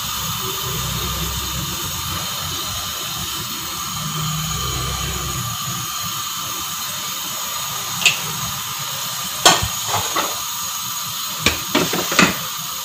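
A steady hiss from the stove under a pan of layered biryani rice, with a low rumble for the first few seconds. From about eight seconds in come several sharp clinks of a utensil against the metal pan, the loudest sounds.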